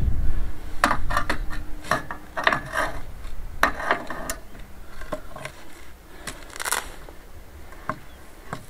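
Irregular metallic clicks, clinks and short scrapes of hand tools and metal frame parts being handled against a wooden post, thinning out in the last few seconds. Low wind rumble on the microphone at the start.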